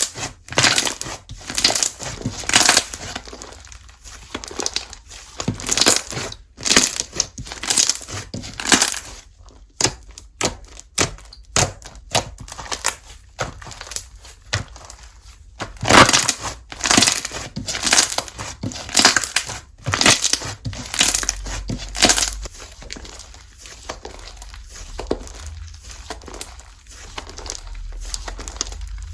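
Slime being squeezed, stretched and pressed by hand, giving irregular runs of sharp crackling and popping.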